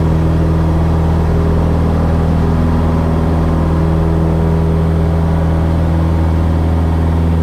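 Cessna 172S's four-cylinder Lycoming engine and propeller running steadily at takeoff power, a loud, even drone with a deep hum.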